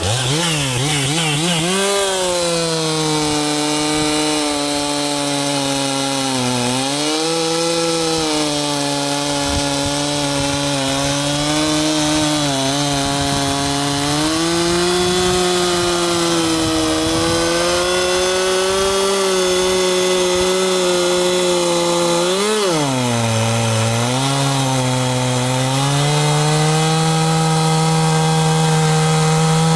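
Stihl MS 362 two-stroke chainsaw running at high revs while cutting through hardwood beech. Its pitch holds steady under load but twice sags briefly, about a quarter of the way in and again about three quarters through, as the chain bites harder, then climbs back.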